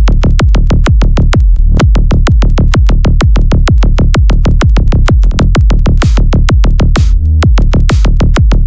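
Electronic dance music with heavy bass and a fast, steady drum-machine beat.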